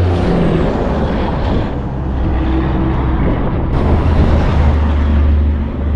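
Road traffic passing on the highway bridge: a steady low engine rumble with tyre noise.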